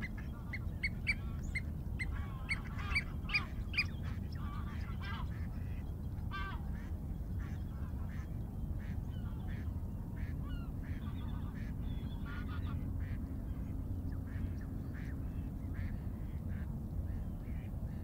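Birds calling: many short chirps and nasal squawks, thick for the first few seconds and then scattered, over a steady low background rumble of forest ambience.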